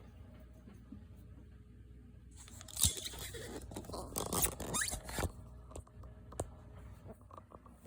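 A folded paper print rustling and crinkling as it is handled, for about three seconds, with the loudest crackle near the start, then a few light clicks.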